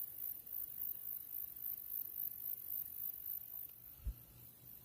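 Faint steady background noise with a low hum, and one short, dull low thump about four seconds in.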